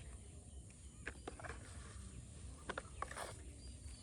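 Faint handling sounds of small toys being picked up: a few light clicks around a second in and again near three seconds, with a brief rustle, over a low background hum.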